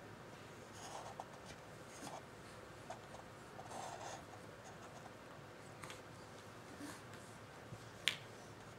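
A baby handling a small plastic toy: faint scattered clicks and soft knocks, with one sharper click about eight seconds in.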